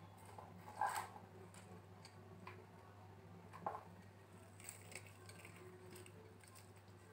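A few faint taps and clicks as chopped onion pieces are dropped by hand into a steel bowl of batter and a steel spoon knocks against the bowl, the loudest about a second in and again near four seconds, over a low steady hum.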